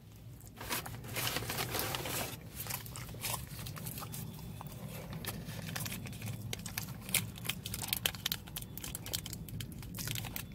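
Packaging crinkling and crackling as a foil-lidded dipping sauce cup is peeled open by hand, among the rustle of paper and plastic takeout bags. There is a steady run of small crackles and ticks.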